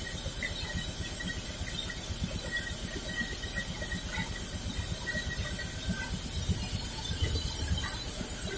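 Wood-cutting band saw running with no log at the blade: a steady low mechanical hum with a fast, even pulse and a hiss above it.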